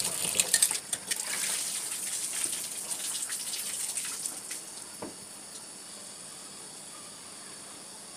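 Tap water running and splashing into a steel bowl of hilsa fish pieces being rinsed by hand, with small clinks of the bowl. The water stops about four to five seconds in, leaving a faint steady hiss.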